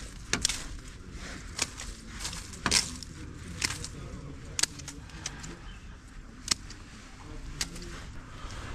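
Sharp snaps and clicks at irregular intervals, about one a second, as a small hand tool works among twigs and weeds at the foot of a concrete wall, over a steady low outdoor rumble.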